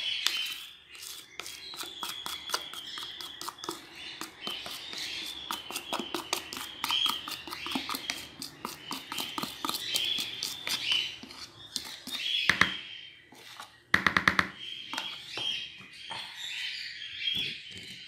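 A spoon scraping and tapping wet bird food out of a small bowl into a mixing bowl, many short clicks, with a quick run of taps about fourteen seconds in. Small birds chirp over it in the background.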